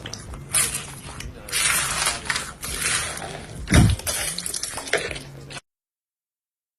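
Slime being squished and poked, with irregular crackling clicks and pops and a soft thump near the middle; the sound cuts off abruptly a little after five seconds.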